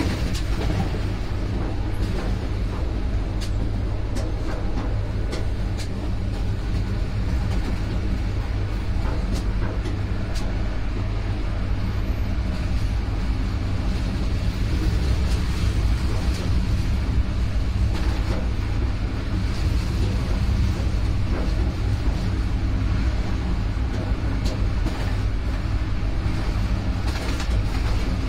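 Passenger train running at speed behind a MÁV V63 electric locomotive, heard from aboard: a steady low rumble with scattered sharp clicks from the wheels on the track.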